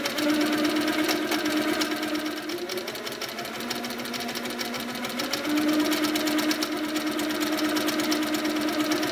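Handi Quilter Sweet Sixteen sit-down longarm quilting machine stitching continuously: rapid needle strokes over a steady motor hum. The hum drops in pitch for about two seconds midway as the machine slows, then picks back up.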